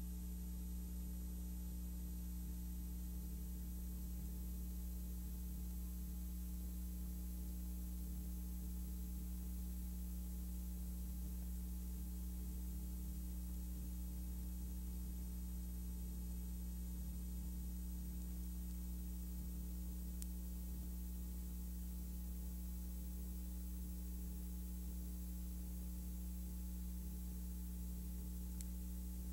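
Steady low electrical hum with a faint even hiss and no other sound: the noise floor of a silent film's transfer.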